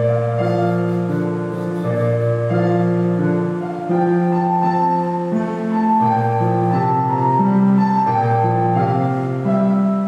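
Slow instrumental music: held chords that change every second or two, with a simple melody above them.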